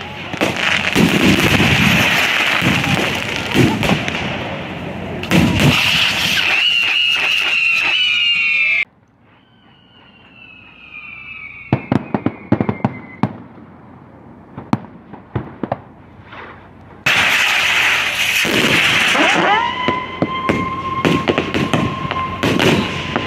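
Firework rockets bursting overhead, a dense loud crackle with falling whistles. About 9 s in the sound cuts abruptly to a quieter stretch of sharp, separate bangs and a falling whistle. About 17 s in, loud crackling returns, with a steady high whistle from about 20 s.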